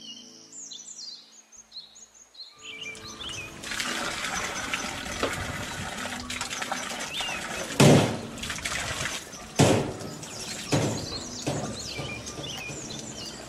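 Soft background music and chirping birdsong, then a dense rustling, hissing noise from about three seconds in. Three sharp knocks stand out over it, the first the loudest.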